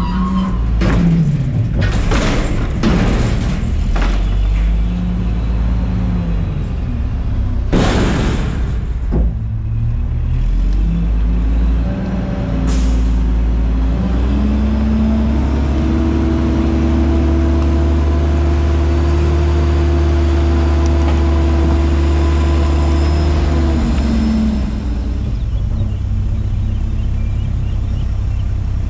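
Front-load garbage truck emptying a dumpster into its hopper: a run of bangs and crashes through the first eight seconds or so as the container is shaken and trash falls in. About halfway through, the truck's diesel engine revs up and holds steady for about ten seconds, then drops back to a lower steady running sound.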